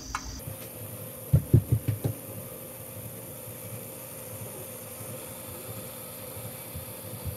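Tri-spin fidget spinner spinning freely on its centre bearing while lying flat on a countertop: a steady whir and hum. A quick run of about five low thumps comes between one and a half and two seconds in.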